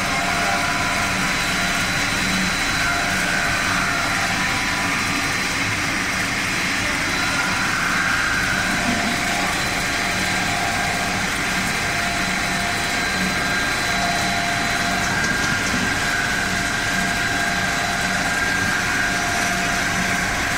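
Snack pellet production line machinery running steadily: a constant mechanical hum with several steady whining tones over it.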